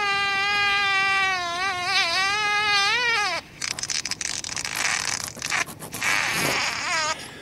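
A long, loud, trumpet-like wail with a wavering pitch that swells and then drops away about three and a half seconds in. A rough, noisy stretch follows, and a short, higher call comes near the end.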